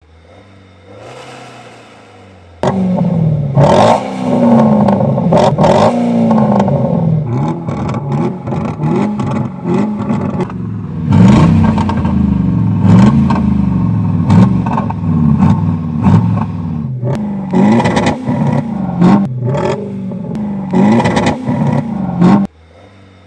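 Tuned BMW X6 engine and exhaust being revved repeatedly while standing: a quiet idle, then about three seconds in a series of loud rev blips rising and falling, with rapid popping and crackling from the exhaust between revs, before it drops back to idle near the end.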